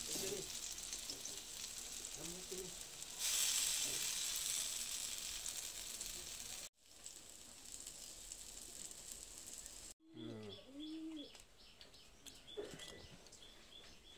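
Egg-dipped bread slices sizzling as they shallow-fry in oil in a pan, louder for a moment about three seconds in. In the last few seconds a pigeon coos and small birds chirp.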